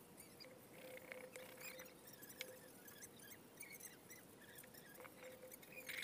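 Faint scraping and small ticks of a knife shaving a piece of jackfruit wood.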